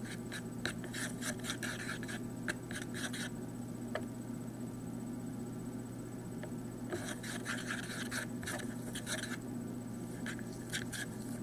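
A mixing tool scraping and stirring around a container of shampoo-and-salt slime, in spells of quick, rough strokes a few seconds long with pauses between. A steady low hum runs underneath.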